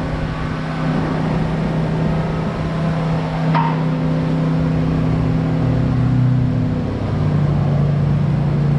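Car lift's hydraulic pump motor running, a steady hum that shifts pitch about seven seconds in, with a short falling squeak about three and a half seconds in.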